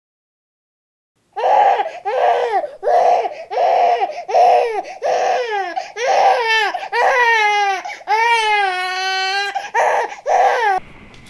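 Hard crying starts about a second and a half in: a run of loud, high-pitched sobbing wails, each shorter than a second. Near the middle the wails are drawn out, with a wavering pitch, then they break back into short sobs.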